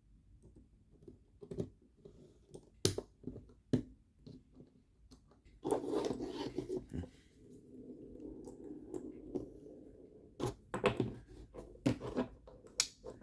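Small sharp clicks and taps of metal knife parts and a small screwdriver being handled, with a stretch of rubbing and rustling in the middle, as a folding knife is put back together.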